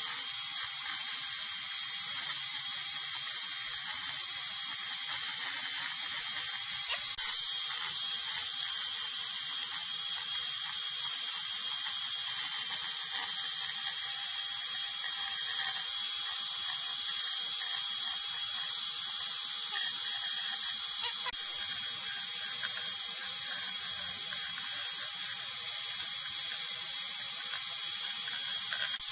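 Small chainsaw running steadily as it carves into a log, the recording sped up to double speed.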